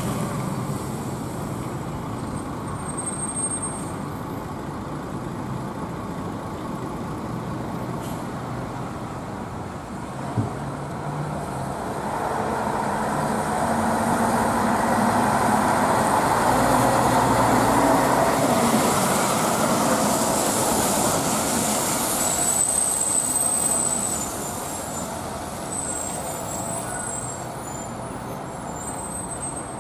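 Diesel buses, among them old Ikarus city and intercity buses, running and manoeuvring at a bus station. The engine noise swells for several seconds around the middle as a bus comes close. There is a brief high squeal near the end.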